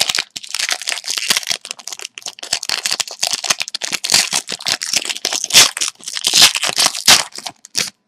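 A trading card pack's wrapper being torn open and crinkled by hand, a dense run of irregular crackles and rips.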